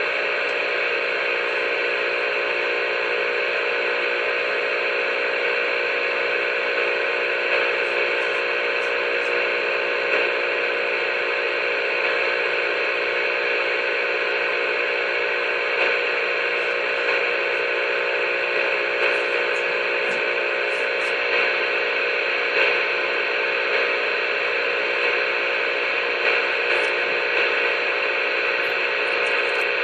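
CB radio speaker putting out steady static with several steady tones layered in, as from an open carrier keyed on the channel.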